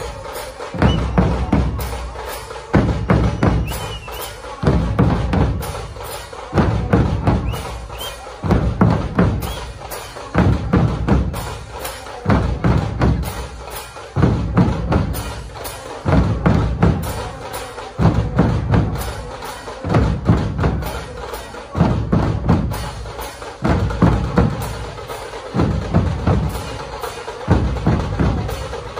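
A Maharashtrian dhol troupe: many large barrel drums beaten together with sticks. Heavy, deep unison strokes land about every two seconds, with fast continuous strikes between them.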